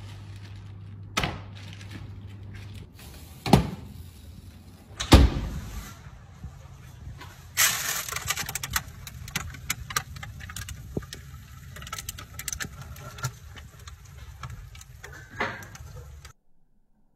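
Kitchen handling noises around a paper-wrapped roasting tray: a low hum, three sharp knocks and thuds in the first five or so seconds, then a run of rapid crackling and clicking over a hiss that cuts off abruptly near the end.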